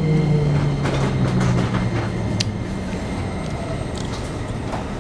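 Toyo IGBT-VVVF inverter and traction motors of a Keikyu 1500 series train, heard from inside the car, whining and falling steadily in pitch over the first three seconds as the train slows on arrival at a station. A few sharp clicks from the wheels and track sound over the running noise.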